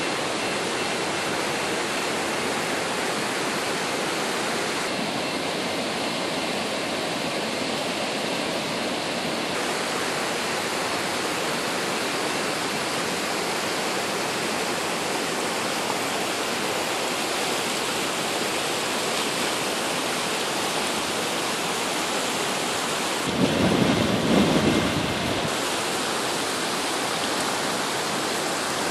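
Floodwater rushing across a flooded street like rapids, a steady rushing noise. Near the end a louder low rumble rises over it for about two seconds.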